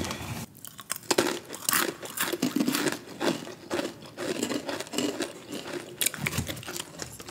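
A crunchy snack being chewed close to the microphone in irregular crackly crunches, mixed with crinkling that fits the snack's bag.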